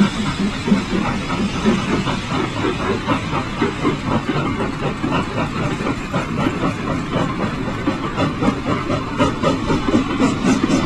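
Steam locomotive sound effect for a model freight train: steady chuffing with steam hiss, an even beat of about five chuffs a second.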